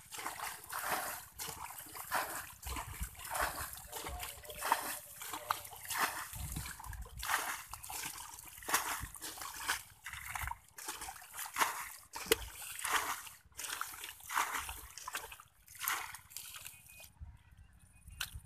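Hands splashing and squelching in shallow muddy water, in quick irregular bursts, as they grope through the mud for fish.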